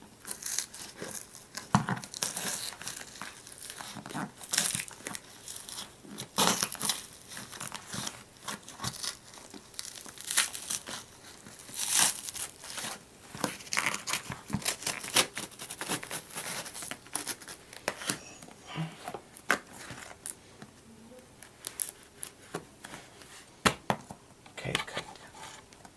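Shipping packaging being cut open with scissors, crinkling and tearing in irregular short rustles as it is worked along its sealed edges.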